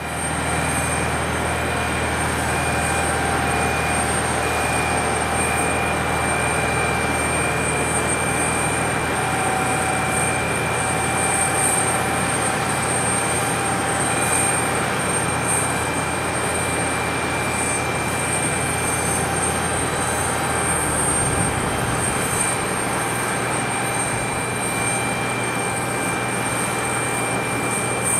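Aquila A210 light aircraft's four-cylinder Rotax 912 piston engine and propeller running steadily, with a steady hum and several held tones; the deepest part of the hum drops away about two-thirds of the way through.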